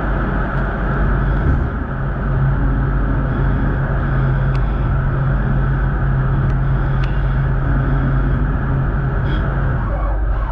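CNC lathe turning a small part, its spindle and chuck spinning while coolant sprays and splashes through the enclosure. A steady low hum sets in about a second and a half in and drops out near the end, under a few faint ticks.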